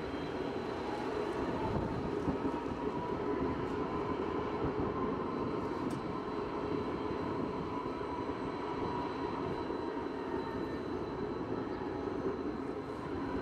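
Bergen Light Rail tram running along street track: a steady rolling and running noise, with a faint steady whine over it.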